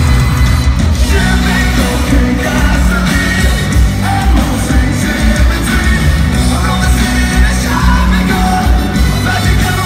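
A live rock band with a horn section plays loudly while a singer sings, with heavy bass, heard from within the audience.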